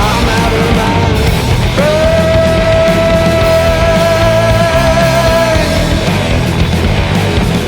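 Psychedelic stoner rock recording with distorted guitars, bass and drums. About two seconds in, a lead line slides up and holds one long note for about four seconds.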